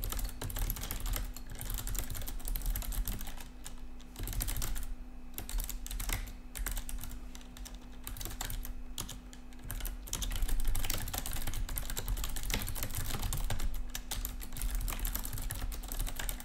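Fast typing on a backlit computer keyboard: quick runs of key clicks broken by short pauses, over a steady low hum.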